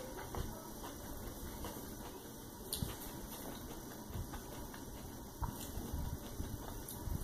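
Soft chewing of a mouthful of Korean black bean noodles (jjajangmyeon), with a few faint clicks, over a steady low background hum.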